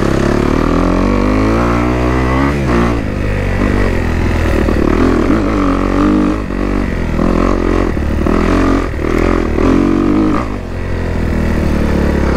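Dirt bike engine under way, its pitch rising and falling repeatedly as the throttle is opened and closed, with a sharp rise about two seconds in.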